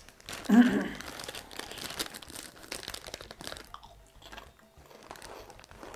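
Plastic snack bags crinkling as hands reach into them, then crunching and chewing of crispy snacks (cheddar biscuits and picante tortilla chips). A short vocal sound about half a second in is the loudest moment.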